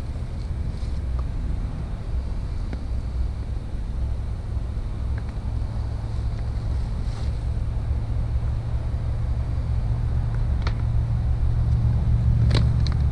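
A steady low mechanical hum, growing slightly louder toward the end, with a few light clicks near the end.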